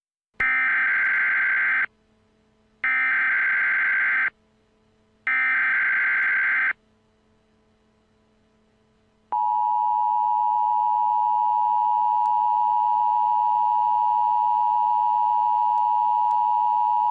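Emergency Alert System header: three bursts of SAME digital data tones, each about a second and a half long, with short gaps between. After a pause of a couple of seconds, the EAS two-tone attention signal (853 and 960 Hz together) sounds steadily and loudly for about eight seconds, announcing that an alert message follows.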